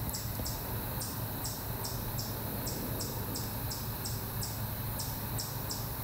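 Insects chirping in a steady rhythm of short, high-pitched pulses, a little over two a second, over a low steady hum.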